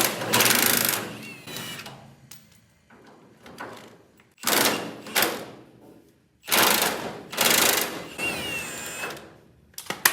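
Impact wrench hammering at the door hinge bolts in several short bursts, the bolts tight and slow to break loose.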